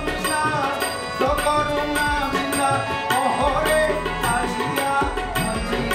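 Harmonium holding sustained chords, with tabla strokes whose bass notes bend downward. A man sings over them.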